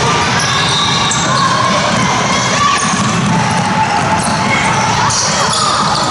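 Basketball dribbling and bouncing on a gym court amid the steady din of a game in a large gym, with players and spectators calling out.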